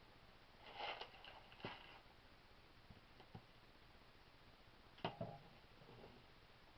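A few faint clicks and light knocks of small air-pistol parts being handled on a work surface, the sharpest one about five seconds in, over a quiet room background.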